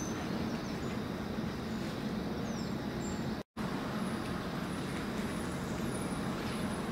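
Steady low background rumble that drops out for a moment about halfway through, with a few faint high chirps.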